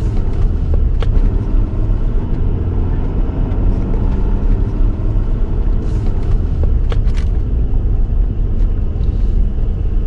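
Pickup truck driving slowly, heard from inside the cab: a steady low rumble of engine and tyres, with a few faint clicks about a second in and near seven seconds in.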